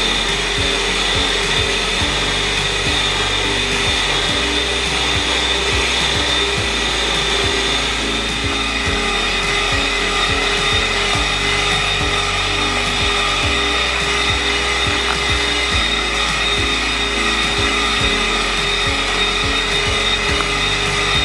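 A small electric kitchen motor runs steadily with a high whine, under background music.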